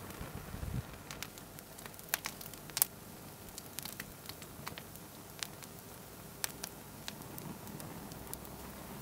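Plastic remote control burning in open flame, crackling with scattered sharp pops over a soft flame hiss; the loudest pop comes about three seconds in.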